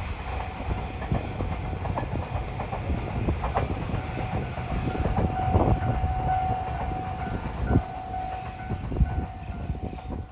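A train rumbling away into the distance, with scattered clicks over the steady low rumble and a steady high tone holding through the second half.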